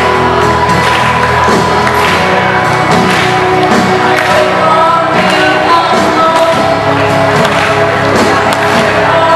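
Loud music with singing, over the noise of a crowd of students.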